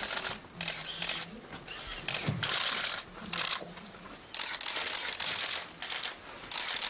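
Press cameras' shutters firing in rapid bursts, several overlapping, in spells of a fraction of a second up to about a second and a half.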